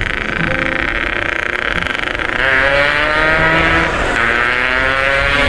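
Yamaha RX-King two-stroke motorcycle accelerating close by, pulling strongly. Its engine note climbs about two seconds in, eases briefly, then climbs again, over steady wind and road noise.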